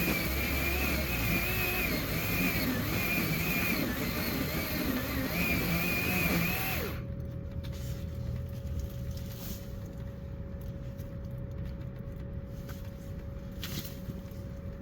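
Ryobi 12-inch battery-powered electric chainsaw cutting through a cedar trunk, its motor pitch wavering under load, then stopping abruptly about seven seconds in. After that a faint steady hum remains, with a few light knocks.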